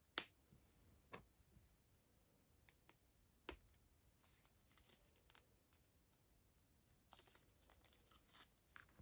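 A few faint clicks and soft rustling of plastic action figure parts being handled as a swap-out hand is popped onto a Marvel Legends Lizard figure. The sharpest click comes just after the start, with two more about a second and three and a half seconds in.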